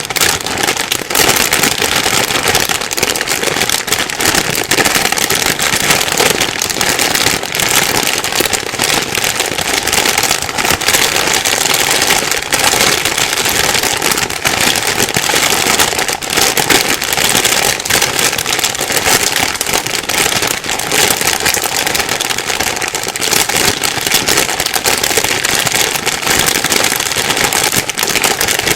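Plastic bag being rustled and crumpled continuously, a dense, loud crackling with no let-up.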